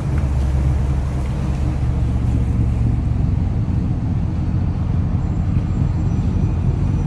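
Steady low engine rumble from the tug towing the boat, the towed yacht's own engines being off.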